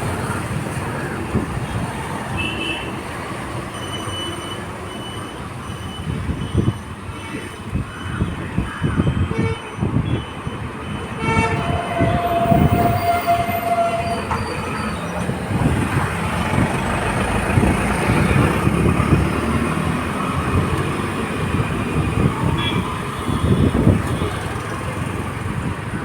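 Steady vehicle rumble with uneven low thumps, and a held horn-like tone from about twelve to fourteen seconds in.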